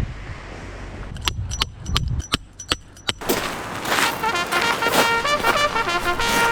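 Background music with brass-like notes starts about three seconds in and is the loudest sound. Before it, wind noise on the microphone and a quick series of sharp knocks.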